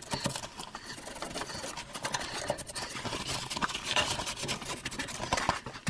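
Cloth rag rubbing and wiping over the headstock and spindle of a Meteor wood lathe: a continuous scuffing with many small clicks and knocks.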